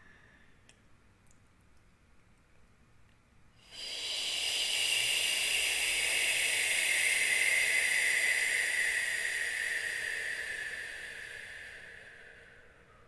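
A long 'shh' exhale, a person's breath pushed out through pursed lips, starting about a third of the way in, held for about eight seconds and slowly fading near the end. It is a pranayama breath, the exhale driven by the lower belly muscles to help clear the lungs.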